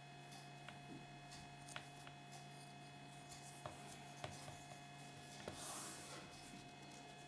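Faint sharp clicks of small plastic toys being handled, five or so spread out, with a brief rustle about six seconds in, over a steady electrical hum.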